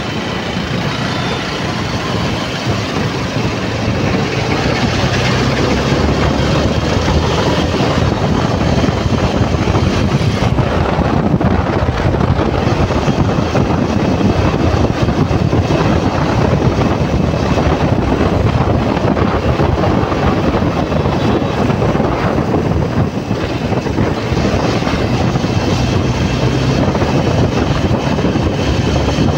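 Motorcycle riding through traffic: the engine running under a steady rush of wind on the microphone. The noise builds over the first few seconds as the bike picks up speed, then holds.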